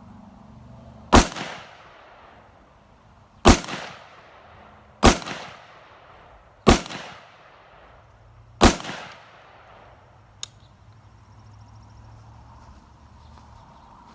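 AR-15 rifle firing five single shots at an irregular pace, one every one and a half to two seconds, each with a short echo trailing off. This is a five-shot group fired to sight in the rifle. A faint click follows about two seconds after the last shot.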